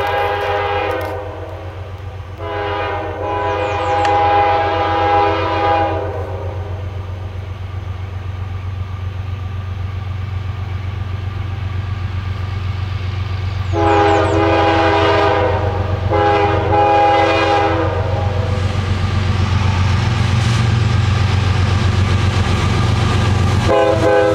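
Approaching CSX diesel freight locomotive sounding its multi-note air horn in long blasts: one ending about a second in, a longer one a couple of seconds later, two more in quick succession about halfway through, and another starting near the end. Under the horn runs the steady low drone of the diesel engines, growing louder as the train nears.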